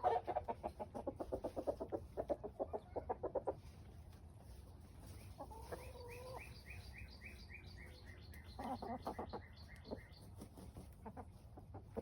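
Chickens clucking in quick runs of short notes, with a burst near the start and another about nine seconds in. Around six seconds there is a short drawn-out call, followed by a run of high chirps.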